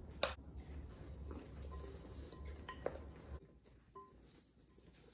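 Gloved hands tossing salted and peppered eggplant slices in a glass bowl: a faint rustle of the slices against each other and the glass. There is a sharp click shortly after the start and a lighter one about three seconds in.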